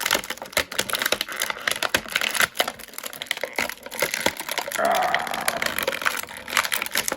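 Plastic toy packaging crinkling and clicking in irregular snaps as an action figure is pried out of its moulded plastic tray. A brief voice sound about five seconds in.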